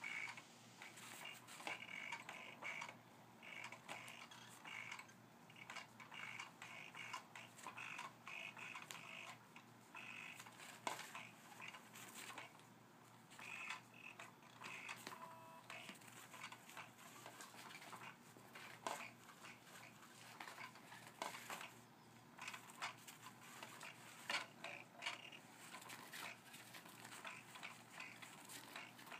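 Faint whirring of a battery-powered cat toy, its motor sweeping a wand under a round fabric cover, starting and stopping every few seconds. Scattered light taps and rustles run through it.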